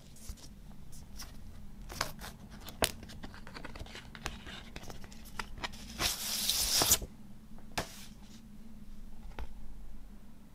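Handling of a glossy printed paper sheet and album packaging: paper rustling with scattered sharp crackles and taps. A louder sliding rush of paper comes about six seconds in and lasts about a second.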